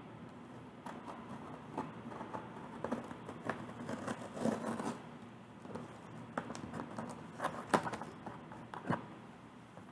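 A cardboard shipping box being opened by hand: irregular scratching, scraping and tearing of packing tape and cardboard, with scattered sharp clicks, the busiest stretch midway and the loudest click a little before the end.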